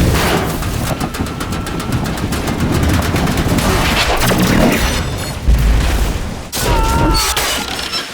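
Crashing airliner fuselage in a film crash sequence: a dense, rapid rattle of cracking and crunching impacts, with heavy booms about five and a half and six and a half seconds in.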